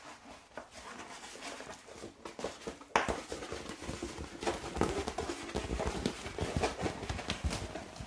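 Crinkling and rustling of a large diamond-painting canvas and its plastic release sheet being handled and rolled up. It turns louder and busier about three seconds in.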